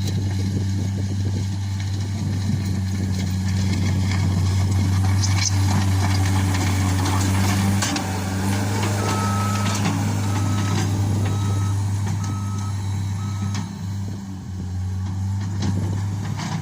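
Case SR130 skid steer loader's diesel engine running steadily under work. From about halfway through, its reversing alarm sounds a series of short beeps roughly a second apart as the loader backs up.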